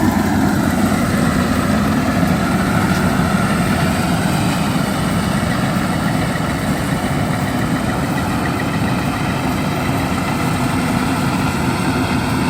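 Rice harvester engine running steadily, its pitch drifting slightly down and up.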